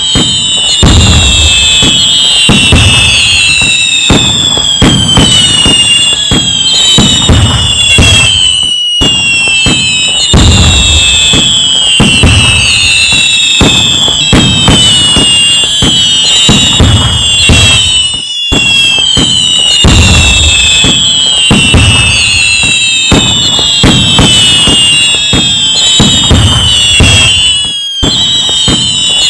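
Fireworks going off in a dense, loud barrage: many bangs and crackles under a crowd of whistles that each fall in pitch. The same stretch of about nine and a half seconds plays over and over, with a brief dropout between repeats.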